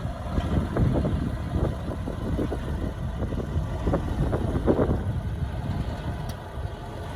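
Diesel engine of heavy earthmoving equipment running with a steady low rumble, swelling briefly a little past the middle.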